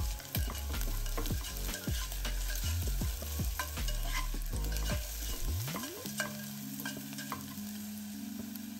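Chopped onions, green chillies and ginger frying in coconut oil in a nonstick pan. They sizzle while a plastic slotted spatula stirs them, with frequent small clicks and scrapes of the spatula against the pan.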